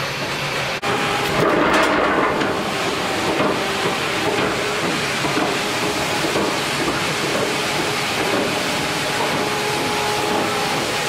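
Sawmill log-handling machinery running steadily: chain log conveyors and their drive motors give a dense mechanical clatter and hiss with a faint hum. The sound drops out briefly about a second in and comes back a little louder.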